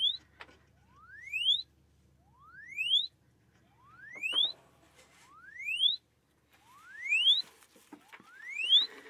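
Repeated rising tone sweeps played through a small piezo contact transducer used as a tiny speaker against a toy echo microphone. Each sweep climbs steeply to a high pitch in about a second and cuts off, coming about every second and a half, seven times. Now and then there is a light handling knock.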